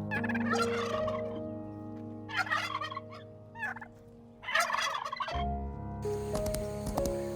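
Domestic fowl giving four quick rattling calls over soft background music. About five seconds in, the calls stop and a run of sharp clicks begins.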